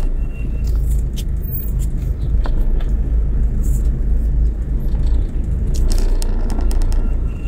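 Car engine and low rumble heard from inside the cabin while the car is being driven.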